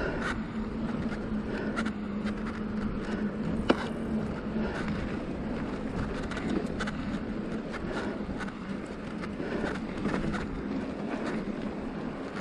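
Felt Decree 3 mountain bike rolling down a dry dirt singletrack: steady tyre-on-dirt noise with frequent small clicks and rattles from the bike over bumps, and one sharp knock a little under four seconds in.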